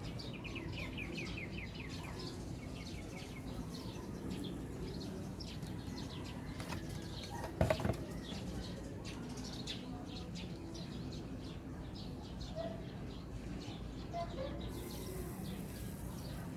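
Birds chirping in the background, with a quick run of small high ticks early on and scattered faint clicks, and one sharp, loud click a little under eight seconds in.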